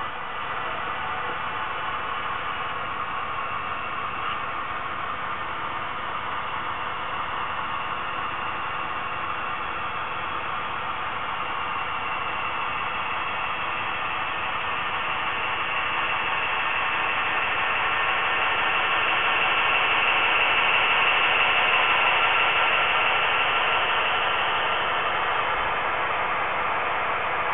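HO-scale model diesel locomotives running on the track, a steady hissing whir that grows louder as they come close, loudest about twenty seconds in, then eases off a little.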